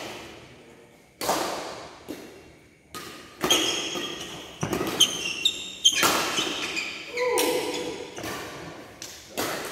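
Badminton rally: a string of sharp racket strikes on the shuttlecock, each trailing a long echo in the hall, with short shoe squeaks on the court between them.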